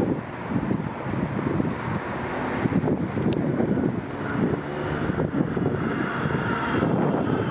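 Articulated city bus driving past, its engine and tyre noise building as it nears, with a faint higher whine about six seconds in as it passes close. Wind buffets the microphone.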